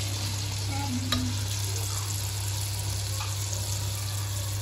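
Pua batter sizzling as it fries in hot oil in a kadai, a steady hiss throughout. A single sharp clink about a second in, and a steady low hum underneath.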